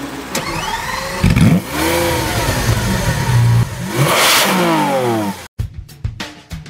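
Lamborghini Aventador's V12 being started: a rising starter whir, then the engine catches loudly about a second in and is revved twice, pitch climbing and falling back each time. About five and a half seconds in it cuts off abruptly and a drum beat starts.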